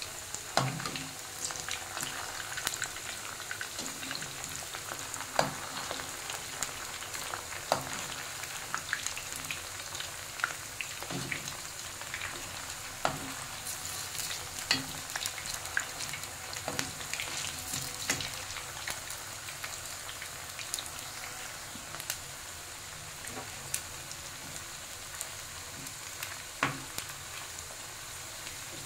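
Cabbage manchurian balls deep-frying in hot oil in a kadai, a steady sizzle of bubbling oil. Every few seconds a slotted spoon stirring the balls gives a short click or knock against the pan.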